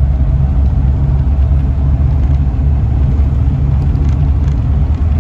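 Car driving along the road, heard from inside the cabin: a steady low rumble of engine and road noise.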